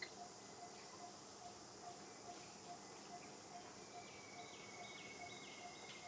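Faint outdoor ambience: a steady high insect hum, a soft note repeating about twice a second, and a few short falling bird chirps in the second half.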